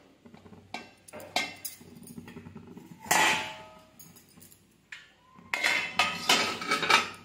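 Stainless steel plates clanking and scraping against a steel pot as it is covered with a plate for a lid: a few light knocks, one loud ringing clang about three seconds in, and a run of clanks with metallic ringing near the end.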